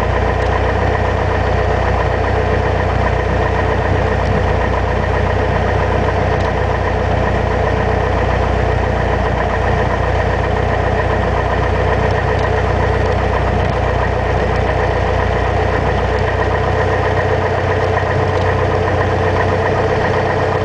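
Piper Warrior's four-cylinder Lycoming O-320 engine and propeller running steadily at low taxi power, heard from inside the cockpit.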